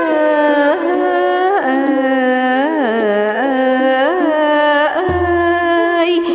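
Music interlude in an Asian traditional style: a single melody of long held notes with sliding, wavering ornaments, and a low drum-like boom about five seconds in.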